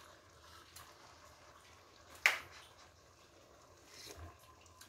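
A single sharp click about two seconds in, then a soft slurp near the end as hot soup is sipped from a metal ladle.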